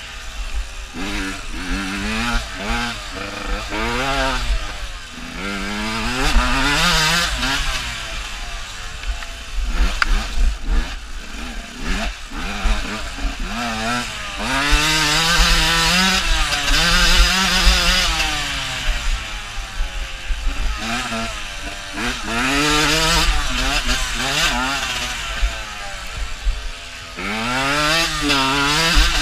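Enduro dirt bike engine revving hard under load, its pitch climbing and dropping again and again as the rider accelerates, shifts and backs off along a rough forest track.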